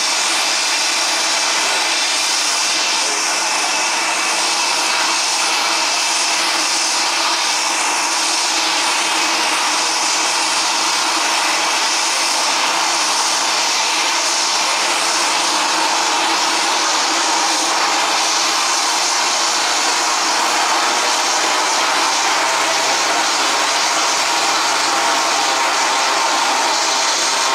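Twin-engine turboprop plane flying away after takeoff, its engines and propellers giving a steady, unbroken drone with a hissy high end.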